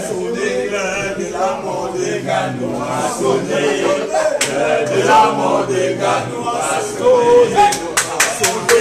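A crowd of men chanting and singing together, many voices overlapping, with several sharp snaps near the end.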